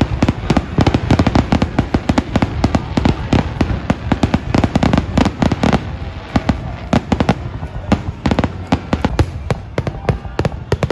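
Fireworks display going off in a dense barrage: a rapid, unbroken string of bangs, many a second.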